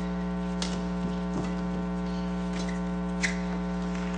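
Steady electrical mains hum in the broadcast audio, with several sharp cracks of badminton rackets hitting the shuttlecock during a rally, the loudest a little past three seconds in.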